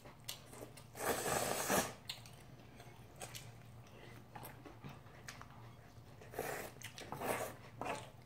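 Eating sounds of instant ramen noodles: one long, loud slurp about a second in, then quieter chewing with a few short slurps and mouth noises in the second half.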